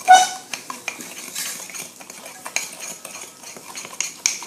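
A spoon stirring brownie batter in a cup, tapping and scraping against the cup in quick irregular clinks, with one louder ringing clink right at the start.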